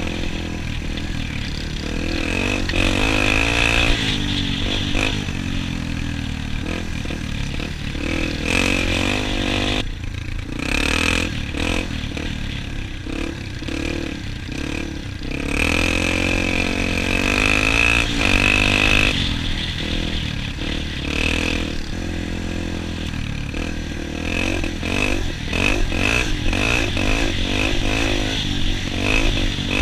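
Dirt bike engine running under way, its pitch rising and falling again and again as the rider accelerates and eases off.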